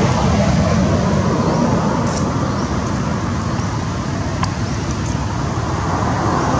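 Steady road traffic noise, a dense rumble and hiss of passing vehicles, with one faint click a little over four seconds in.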